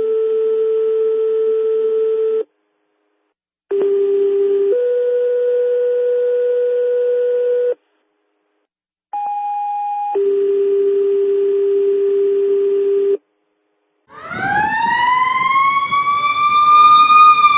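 Fire dispatch two-tone paging alerts over a scanner radio: three tone-outs, each a short tone stepping to a longer steady tone, separated by abrupt silences. About 14 seconds in, an emergency vehicle siren starts up loud, its pitch rising for about three seconds and then falling in a wail.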